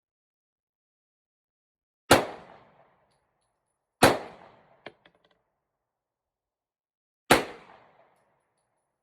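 Three single shots from a Ruger Security-9 9mm pistol, about two and three seconds apart, each trailing off in a short echo. A smaller sharp click comes just before the third second of the gap after the second shot.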